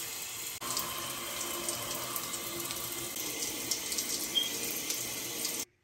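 Shower running, water spraying steadily. It breaks off for a moment about half a second in, then cuts off abruptly near the end.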